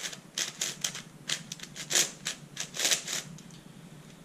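Plastic layers of a 4x6x8 cuboid twisty puzzle, built from an MFJS Meilong 8x8 with smoothed 3D-printed extensions, turned by hand in quick succession. About a dozen clicks and clacks, stopping a little over three seconds in.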